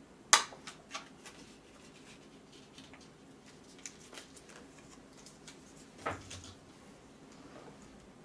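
A few faint, sharp clicks and light knocks over a low, steady room hum, the loudest a single click about a third of a second in and another click with a dull knock around six seconds in.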